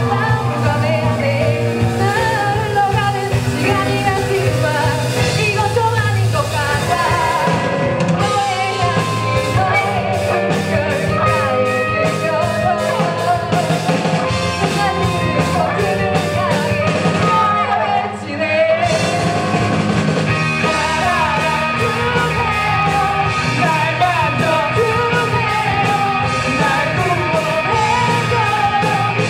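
Rock band playing live: drum kit, electric guitars and bass under a singing voice, with a brief break partway through before the full band comes back in.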